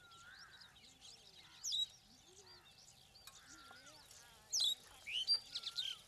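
Asian pied starlings calling: a busy mix of whistles and chatter, with loud, sharp chattering calls about two seconds in and again over the last second and a half.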